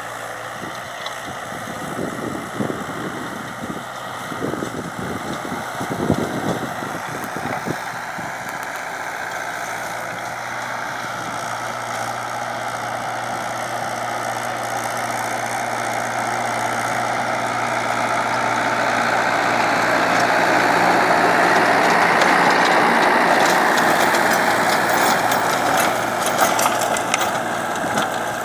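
Mahindra 575 tractor's four-cylinder diesel engine running under steady load while its 6-foot rotavator churns the soil. It grows louder as the tractor comes close, with scattered knocks and rattles from the working rotavator.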